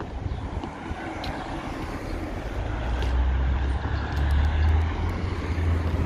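Street traffic: a car passing on the road, swelling about halfway through, with wind buffeting the microphone in a low uneven rumble.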